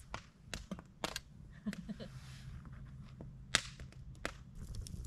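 Wood campfire burning in a fire pit, crackling with scattered sharp pops; the loudest pop comes about three and a half seconds in.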